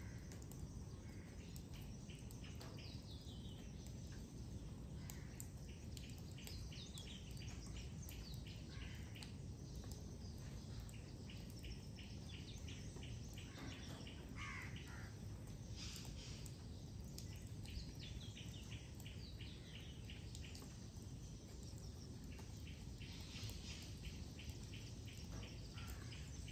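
Several birds singing and calling: rapid trains of chirps and a few falling whistled notes, strongest around the middle, over a steady low background noise.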